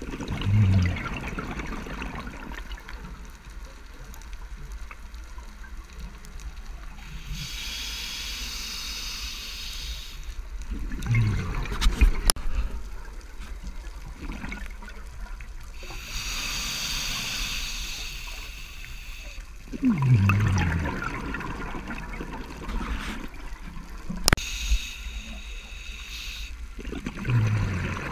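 Scuba diver breathing through a regulator underwater: long hissing inhalations alternate with bursts of bubbling, gurgling exhaust, four exhalations in all, roughly every eight to ten seconds. Two sharp clicks, near the middle and late on.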